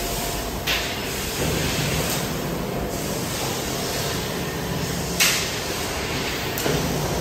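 HSG TL660S heavy-duty tube laser cutter running as it cuts a large steel pipe: a steady hiss over a low machine hum, with two short, sharp hisses, one just under a second in and a louder one about five seconds in.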